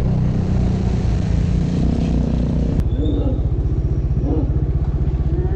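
Yamaha MT-15's single-cylinder engine idling with a fast, even beat. A click comes nearly three seconds in.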